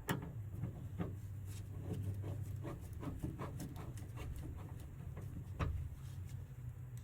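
Scattered light clicks and taps of hand work with a screwdriver as Phillips screws go into the sliding door's handle assembly, over a low steady hum.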